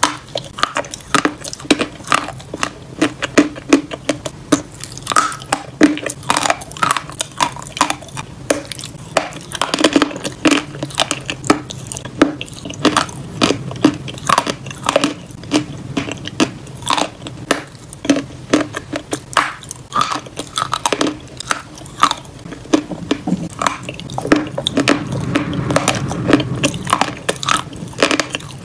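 Close-miked biting and chewing of a slab of edible chalk: a steady run of crisp, crumbling crunches, several a second.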